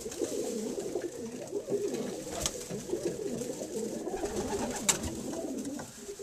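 Several racing pigeons cooing at once, their low warbling coos overlapping without a break. Two sharp clicks stand out, about two and a half and five seconds in.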